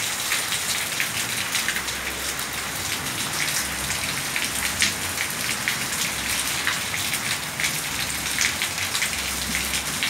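Steady rain falling on a wet concrete yard, a constant hiss dotted with many close, separate drop hits.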